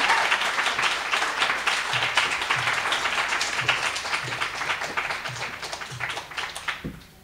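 Small audience applauding at the close of a poetry reading, the clapping slowly thinning and dying away near the end.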